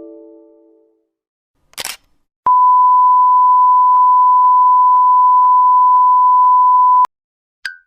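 Sound-effect sequence: a short, sharp camera shutter click about two seconds in, then the steady TV "no signal" test-tone beep, one unbroken high tone held for about four and a half seconds before cutting off suddenly. A brief blip follows near the end, and the fading tail of a notification chime can be heard at the very start.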